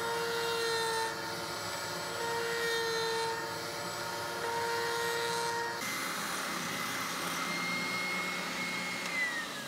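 Table-mounted router spinning a roundover bit while a wooden ring is fed past it, the level rising a little with each pass. Then a spindle sander runs with a steady whine as the inside of the ring is sanded, and its whine falls away near the end as the motor winds down.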